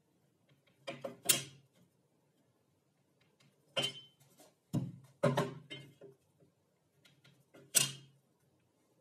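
Wooden boards, a tape measure and a metal square handled on a wooden bench: about five separate knocks and scrapes, the sharpest about a second in and near the end, with a cluster in the middle.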